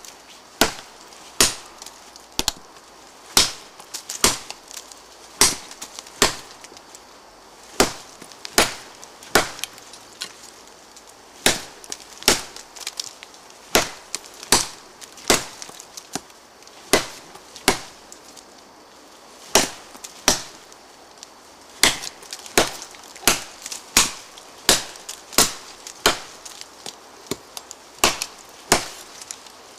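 A ParangXL parang's steel blade chopping into a live tree trunk about 12 cm thick, with a sharp woody strike at each blow. The blows come about one a second, with short pauses, and quicken to nearly two a second in the last third.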